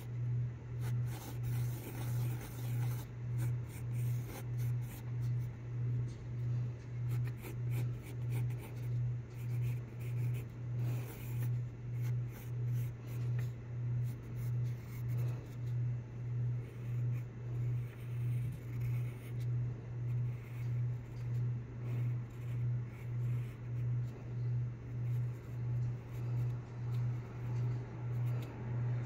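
Graphite pencil scratching faintly on sketchbook paper as a drawing is sketched, under a louder low hum that swells and fades rhythmically, about three times every two seconds.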